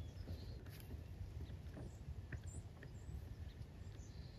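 Quiet outdoor ambience: a low steady rumble with faint scattered ticks and rustles, and a couple of faint high chirps.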